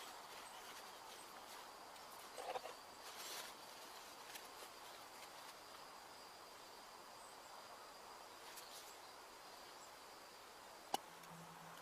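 Quiet woodland background, with a brief call, likely a bird's, about two and a half seconds in and one sharp click near the end.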